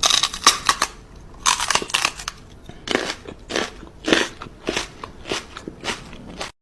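Crunching and chewing: an irregular run of loud crunches, a few each second.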